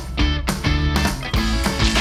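Background music with guitar chords changing on a steady beat.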